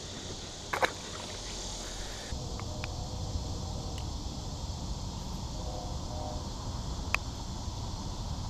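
A small bass tossed back into the pond hits the water with a short splash about a second in, over a steady high insect buzz. After that a low steady rumble with a few faint clicks.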